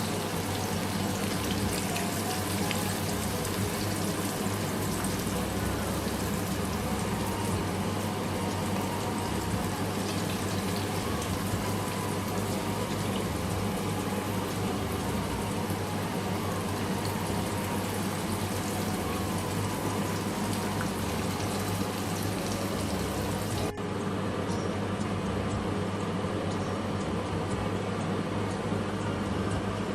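Battered chicken pieces deep-frying in hot oil: a steady sizzling hiss with fine crackle, with a brief drop about three-quarters of the way through.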